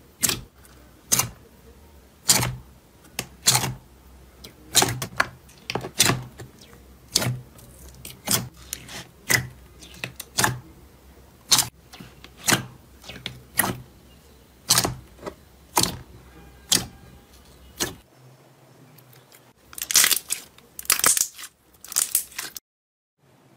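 Clear jelly slime in a plastic tub popping as fingers press into it, a short sharp pop every second or so. Near the end comes a longer run of crackly squishing as the slime is squeezed between the hands.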